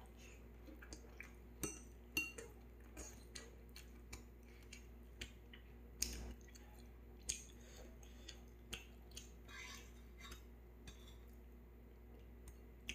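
Metal chopsticks tapping and clinking against a metal plate and pot in scattered light clicks at irregular intervals, the loudest knock about six seconds in.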